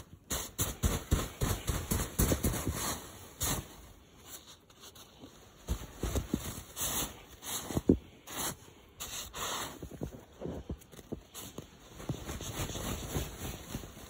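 Footsteps crunching through fresh snow, about two steps a second, pausing for a moment about four seconds in before going on.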